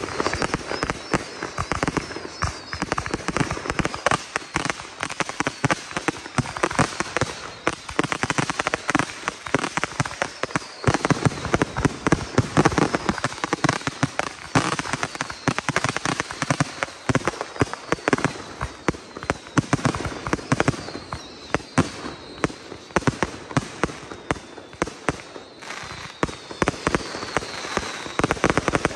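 Consumer aerial fireworks firing a rapid, unbroken barrage: shots and crackling bursts overlapping one another, with a few faint falling whistles, loudest about twelve seconds in.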